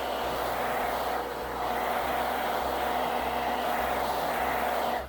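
Handheld hair dryer blowing steadily, heating the adhesive under a phone's back glass. It dips slightly about a second in and cuts off just before the end.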